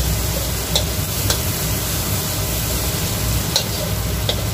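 Ground spice paste and dried shrimp sizzling in hot oil in a pan, stirred with a spatula that clicks against the pan a few times. A steady low hum runs beneath the sizzle.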